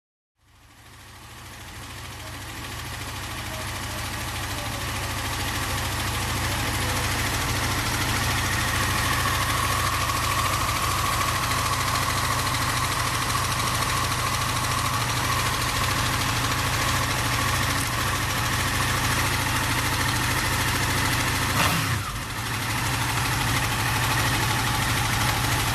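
Honda VFR800 V4 engine idling steadily with an abnormal mechanical noise, which the owner links to the cam chain tensioner. The sound fades in over the first few seconds, with a brief break in the sound near the end.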